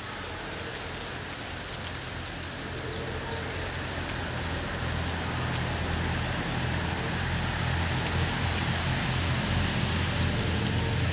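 Steady rain hiss. A few faint high chirps come about three seconds in, and a low rumble grows louder through the second half.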